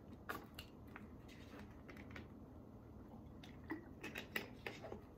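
Faint scattered clicks and light taps over quiet room tone, more frequent in the second half.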